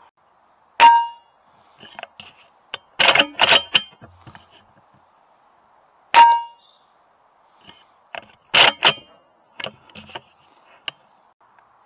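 Two shots from an AGT Uragan 2 air rifle, each a sharp crack with a brief metallic ring, about five seconds apart. A couple of seconds after each shot comes a quick cluster of clicks and clacks, with a few fainter ticks near the end.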